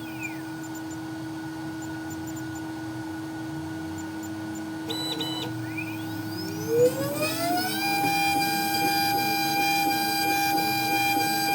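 Electric spindle motor of a small CNC machine whining steadily as it machines an iPhone LCD IC. About six seconds in its pitch climbs over a second and a half, then holds higher as the spindle speeds up.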